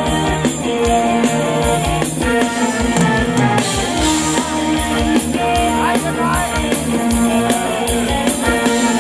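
Ramwong dance music played by a live band, with a drum kit keeping a steady beat under held melody notes.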